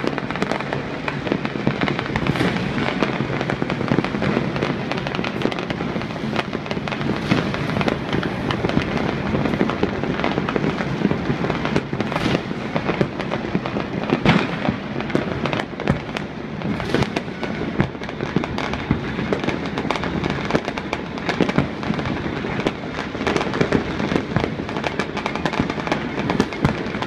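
Many fireworks and firecrackers going off all over a city at once: a dense, unbroken crackle of bangs and pops, with louder sharp reports standing out every few seconds.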